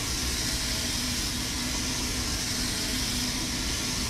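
Steady kitchen hiss with a low hum, the sound of a restaurant exhaust hood fan running over a gyro rotisserie.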